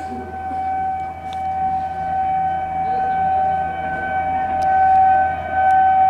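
Locomotive horn of an approaching express train held in one long continuous blast, growing louder, with a second, lower note joining near the end. A low steady rumble runs underneath.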